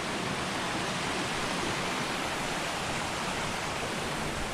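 Waterfall cascade on a mountain stream, water rushing in a steady, even roar-free hiss.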